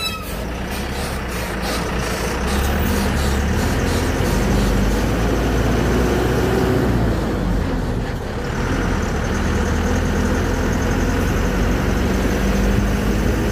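Goods-truck engine running steadily with tyre and road noise while driving along a highway, heard from inside the cab.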